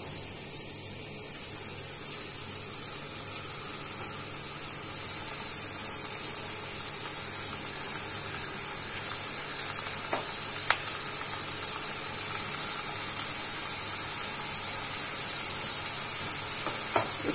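Battered bitter gourd slices deep-frying in hot oil in a steel kadai: a steady sizzle, with a couple of sharp clicks about ten seconds in.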